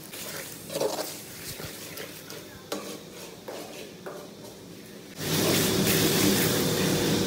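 Steel spoon stirring spice powders into an onion-tomato masala in a metal kadai, with scattered clicks and scrapes of spoon on pan. About five seconds in, a steady, louder sizzle of the masala frying starts.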